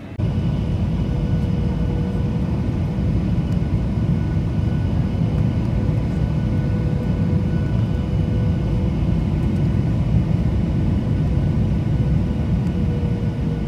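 Jet airliner's turbofan engines heard from inside the passenger cabin: a steady low rumble with a faint steady whine above it as the plane rolls along the taxiway.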